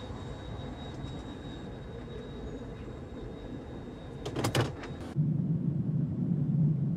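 Steady hum inside a car with a faint high whine, then a short run of sharp clicks about four and a half seconds in. About five seconds in it cuts to the louder, steady low rumble inside a jet's cabin as the aircraft moves along the runway.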